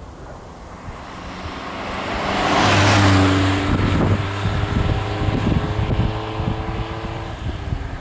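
1983 Ford Escort MK3 1.1 driving past: engine and tyre noise build to the loudest point about three seconds in, then the steady engine note fades as the car pulls away.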